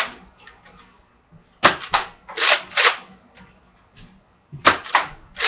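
Nerf N-Strike Elite Retaliator XD, a spring-powered dart blaster, being primed and fired in quick succession: groups of sharp plastic clacks and pops, about four close together, a pause, then three more.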